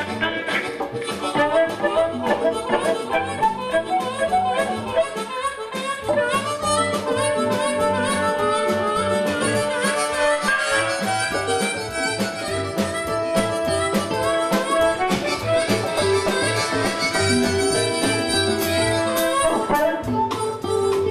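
Background music: an instrumental with long held, reedy notes over a steady beat.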